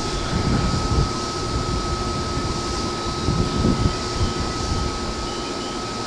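E233-series electric motor car (MoHa E232) standing at a platform with its on-board equipment and air-conditioning running: a steady hum and rush of fans with one constant high whine throughout.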